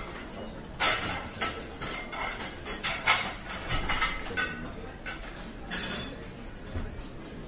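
Crockery and cutlery clinking and clattering: a string of short, sharp clinks at uneven intervals, the loudest about a second in and about three seconds in.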